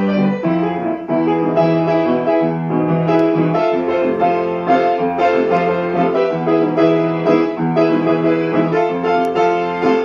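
Piano music: a run of chords and single notes.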